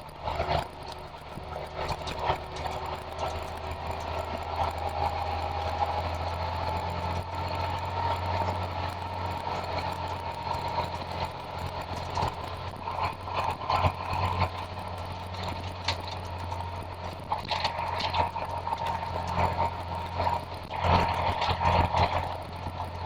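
Tow truck's engine running steadily with a low hum, with scattered rattles and clicks, a cluster of them near the end.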